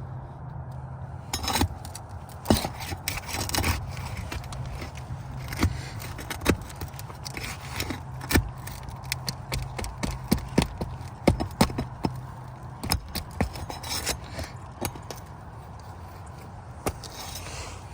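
Hand tools working on asphalt roof shingles as the roofing nails are pried out: irregular sharp clicks and knocks, with a few short scrapes of metal against the shingle surface.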